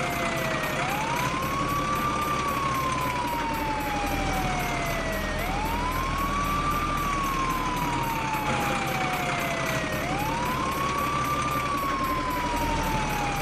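Wailing siren, its pitch rising quickly and falling slowly three times, about every four and a half seconds, over a steady dense noise.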